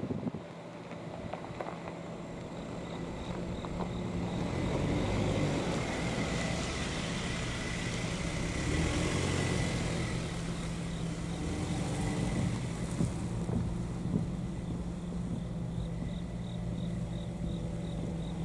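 A car (an SUV) driving past close by and across the rail crossing: its tyre and engine noise swells about a third of the way in and fades as it moves off. A faint regular chirping sits above it.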